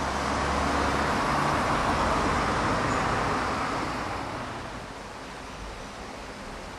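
A road vehicle passing by, its tyre and engine noise swelling over the first couple of seconds and then fading away.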